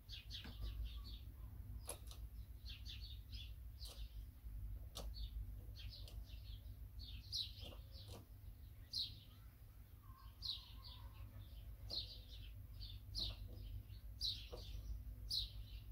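Small birds chirping over and over in quick short notes, with a few sharp clicks and a steady low hum underneath.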